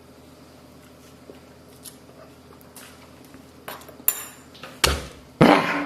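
Cutlery and crockery clattering: a few faint ticks, then four sharp clinks and knocks in the last two seconds, the last the loudest with a short ringing clatter.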